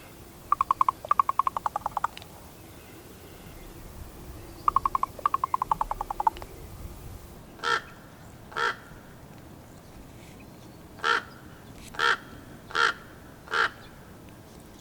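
Female raven giving two runs of rapid knocking clicks, each lasting about a second and a half, then six short calls. These are sounds she makes to communicate with her mate.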